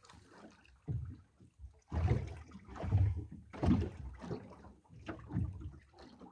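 Irregular splashing and sloshing of water against the side of a boat, with dull knocks, about eight bursts over six seconds.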